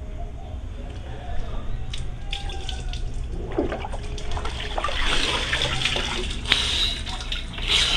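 Water sloshing and splashing in a plastic bucket during a bucket shower, louder about five seconds in and again near the end, with a few light knocks.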